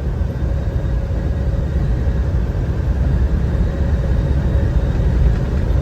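Steady road and engine noise from inside the cabin of a moving truck, a constant low rumble with a faint steady hum.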